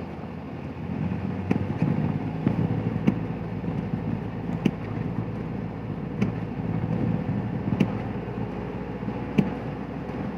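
Road vehicle running with a steady rumble, and a sharp tick repeating evenly about every second and a half.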